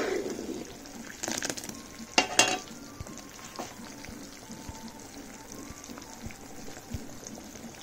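Butter simmering down into ghee in a kadhai, sizzling steadily as its water cooks off and the milk solids begin to separate. A metal ladle scrapes and clinks against the pan a couple of times, a little over a second in and again around two seconds in.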